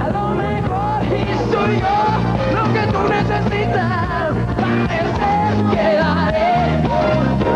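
Live band playing an upbeat disco-pop groove with a steady bass line, with a male lead vocal sung over it.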